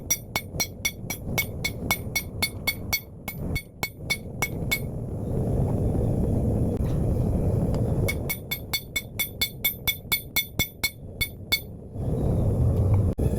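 Hand hammer striking hot 5160 leaf-spring steel on a steel anvil while drawing out a blade, about four to five quick blows a second, each with a bright ringing ping. The blows come in two runs with a pause of about three seconds between them, where a low rushing noise is left.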